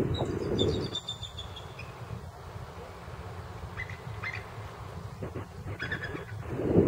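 A flock of small birds chirping and calling in short, scattered bursts, over a low rushing noise that eases after about a second and swells again near the end.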